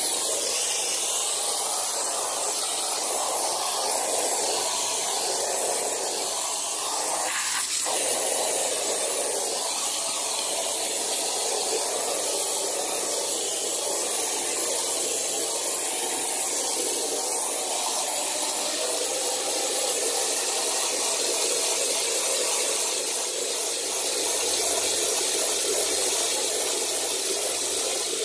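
Water jetting from a garden hose nozzle onto a soapy rug, a steady spraying hiss.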